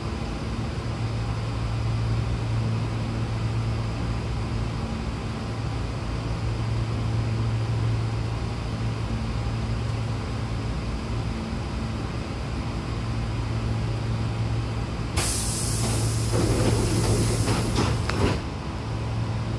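Hankyu commuter train standing at a platform with a steady low hum, then about fifteen seconds in a loud hiss of compressed air for some three seconds as its pneumatic sliding doors close, ending in a knock as the door leaves meet.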